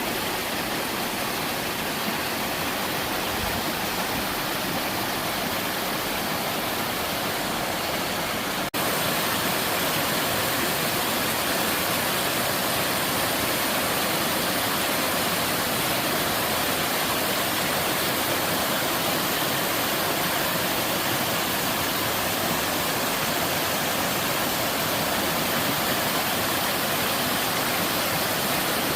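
Mountain-valley sliding waterfall, water pouring down sloping rock: a steady rush of water. About nine seconds in it dips for an instant and comes back slightly louder and brighter.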